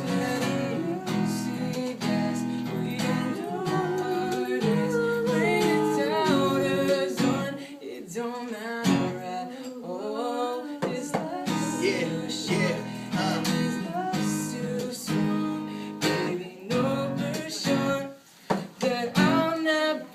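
Strummed acoustic guitar backing a melismatic, R&B-style sung vocal. The low guitar chords drop out briefly twice, about eight seconds in and again near the end.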